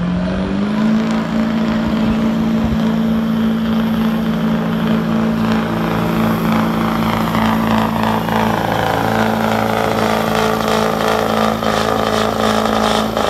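Diesel Chevrolet Silverado HD pickup pulling a weight-transfer sled at full throttle: the engine revs up in the first second, then holds high, steady revs under heavy load.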